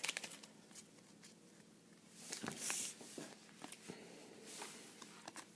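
Faint handling of a foil Pokémon booster pack and its cards: scattered small clicks and crinkles, with a short rustling hiss about two and a half seconds in as the wrapper is worked open.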